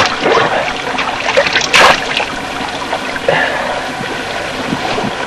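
Water of a small spring trickling over stones, with splashes as hands scoop into it; the loudest splash comes about two seconds in.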